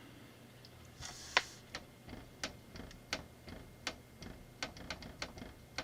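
Plastic clamp building bricks clicking as they are handled: a run of small sharp clicks, about three a second, starting about a second in.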